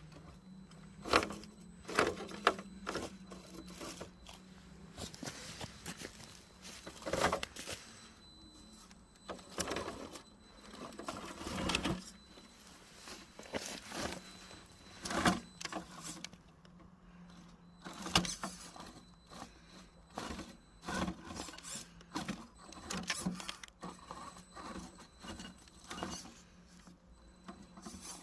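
RGT 86100 RC rock crawler driving: its small electric motor and gears whirring in short spurts, with repeated clicks and knocks spread over the stretch.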